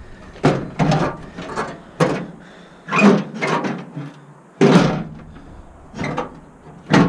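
Rusty sheet-metal body part of a first-generation Dodge Ram pickup being propped back up and shifted into place: about ten irregular metal clanks and knocks.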